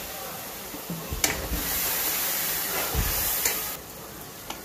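Onion-tomato masala hissing and sizzling in a steel kadhai just after a little water has been poured in, with a few low knocks of the steel ladle against the pan. The hiss drops away sharply near the end.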